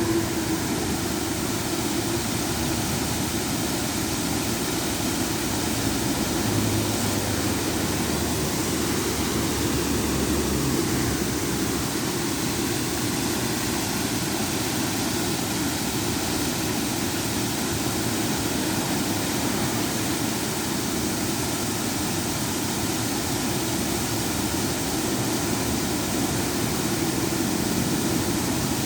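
Water pouring steadily over a small river cascade, a continuous even rush.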